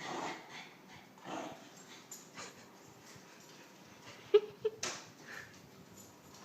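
West Highland white terrier worked up over a toy: scattered short breathy huffs and scuffles, with two short sharp squeals a little after four seconds in.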